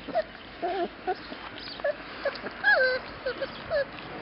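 Young Labrador retriever puppies whimpering in short, high squeaks while they eat from their bowls, with one longer, falling whine about two-thirds of the way through.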